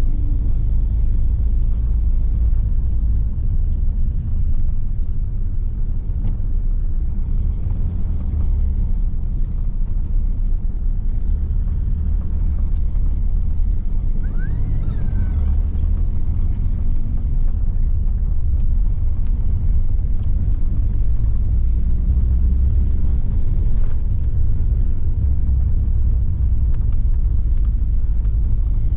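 Car driving slowly along a road, heard from inside the car: a steady low rumble of engine and tyres.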